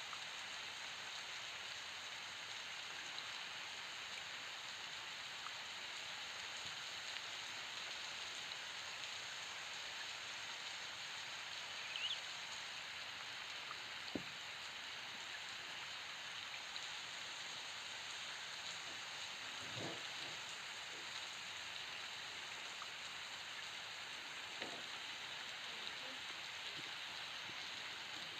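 Faint, steady rain hiss with a few soft scattered taps.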